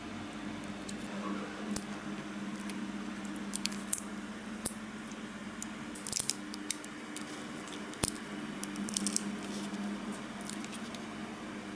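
Silicone rubber mould being flexed and peeled apart by hand to free cast resin wheels: scattered small clicks and crackles, a few sharper ones, over a steady low hum.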